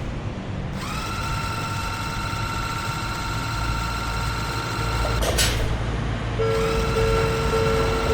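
Animated railway sound effects: a train's steady high motor whine over a low rumble, broken by a short whoosh about five seconds in. Near the end a level-crossing alarm starts, its repeating tone sounding about twice a second.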